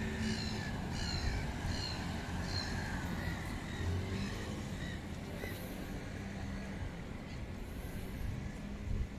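A bird calls repeatedly, a short call about every half second, for the first two or three seconds. Under it runs a steady low rumble of city traffic.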